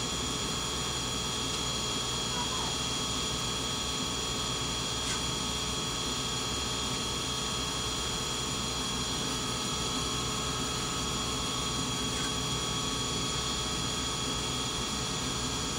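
Metal lathe running steadily under power, its motor and gear train making an even whine, while a turning tool takes a light 10 thou cut along the outside of steel stock held in a 3-jaw chuck.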